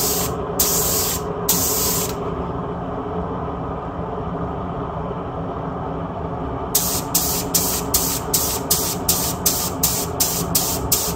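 Aerosol spray can hissing in short bursts: a few bursts in the first two seconds, a pause, then quick bursts about three a second from about two-thirds of the way in. A steady low mechanical hum runs underneath.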